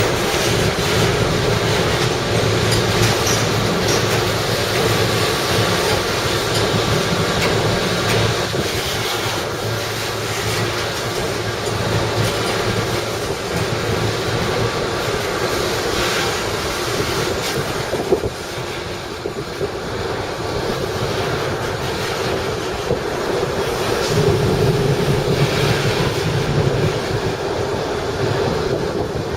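A train rolling past on the rails: steady wheel-on-rail noise with clicks over rail joints. A low locomotive engine hum sounds for the first several seconds and comes back about three-quarters of the way through.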